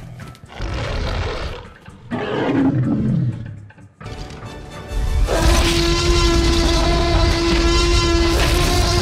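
Cartoon T. rex growling twice, the second growl falling in pitch, then letting out a long, loud roar of victory from about four seconds in, with a held musical chord under it.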